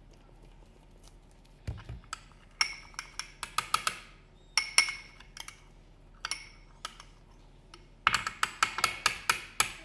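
A spoon clinking and tapping against a bowl while stirring a thick creamy mixture, in irregular clusters of taps starting about two seconds in and coming thickest near the end.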